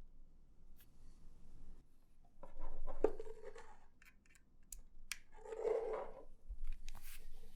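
Typing on a custom Matrix 2.0add mechanical keyboard with an aluminium plate, Krytox-lubed JWK Mauve switches and GMK keycaps: irregular keystrokes, with two quick runs of typing about three and six seconds in.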